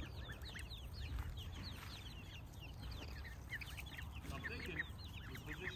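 A flock of young chicks peeping, many short downward-sliding chirps overlapping without a break.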